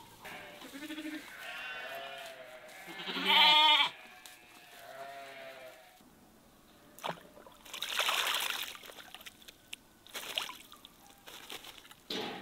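Sheep bleating, several calls one after another, the loudest about three and a half seconds in. After that, a hooded crow at a water trough makes a few short splashes and clicks.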